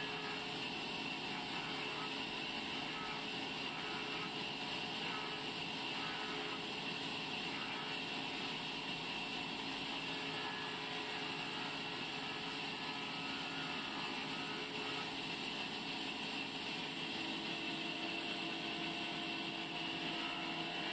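Large sawmill band saw running steadily while a log is fed through its blade, ripping it lengthwise. A steady, even machine noise with a constant whine.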